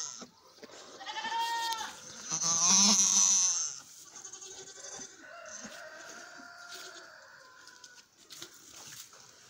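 Miniature goat doe in labour bleating: two loud cries in the first four seconds, the second one louder and longer, then quieter. The cries come as she strains to deliver her kid.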